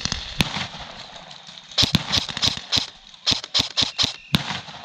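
Airsoft rifles firing single shots as sharp cracks: two near the start, then an irregular run of about a dozen between two and four and a half seconds in.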